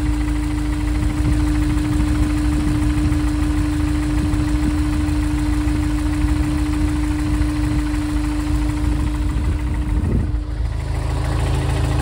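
Honda S2000's DOHC VTEC four-cylinder idling, with faint knocking under the idle and a steady tone over it that stops about ten seconds in. It is the noise the owner suspects may be engine knock, tied to low oil pressure at idle.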